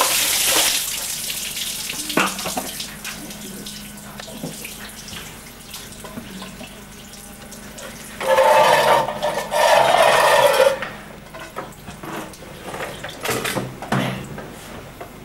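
Water poured from a plastic bucket splashes down over a person for about the first second, then dies away to dripping and small noises. About eight seconds in comes a second loud, noisy stretch lasting between two and three seconds, followed by a few knocks near the end.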